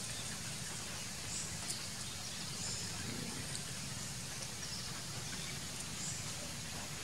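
Steady outdoor background noise, with faint high chirps now and then and a single small click about two seconds in.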